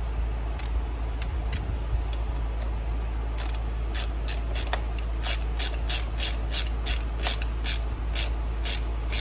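Ratchet wrench clicking as the bolts of a cam bearing installer plate are snugged against a Shovelhead crankcase. A few scattered clicks come first, then a quicker, even run of about two to three clicks a second from about three seconds in.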